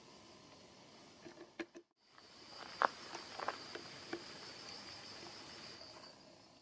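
Insects chirring in a steady high-pitched chorus, which sets in about two seconds in after a brief dropout. A few sharp clicks and rustles fall around the middle, the loudest a single click just before the three-second mark.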